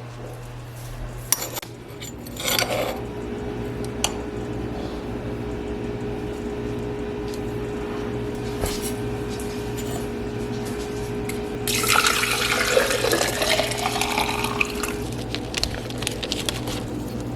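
A few clinks of kitchenware, then about twelve seconds in, liquid pours into a glass vessel for about three seconds while coffee is being made by hand. A steady low hum runs underneath.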